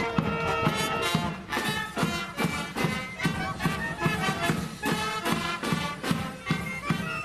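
Marching band playing a march: trumpets and other brass carry the tune over drums keeping a steady beat.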